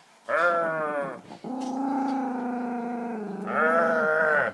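Dog growling, guarding her snacks: three long pitched growls, a higher one, then a longer, lower, steadier one, then another higher one.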